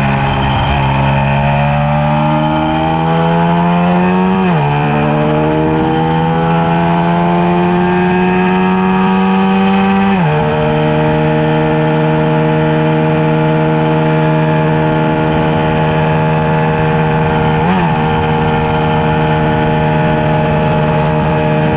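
A Yamaha LC135's single-cylinder four-stroke engine, built up to 150cc, accelerating hard on track. The revs climb, drop sharply at an upshift about four and a half seconds in, climb again and drop at a second upshift about ten seconds in. The engine then holds steady at high revs, with one brief dip a few seconds before the end.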